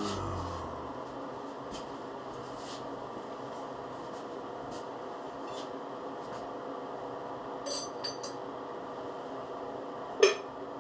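Metal tools and parts being handled: faint scattered clicks, a small ringing metal clink about three quarters through, and one sharp metallic knock near the end, over a steady shop hum.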